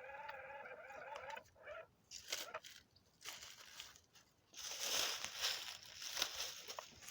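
An RC car's motor whines steadily and cuts off about a second in, then water and mud splash and slosh in irregular bursts, loudest near the end.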